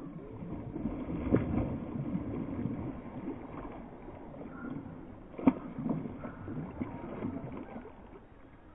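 Water splashing and gurgling around a canoe, uneven and low, with two sharp knocks, about a second and a half in and again about five and a half seconds in.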